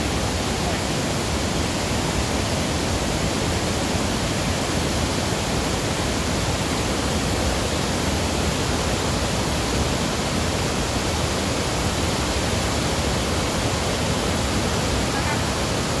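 A steady rush of white water: a wide river cascading over rock ledges.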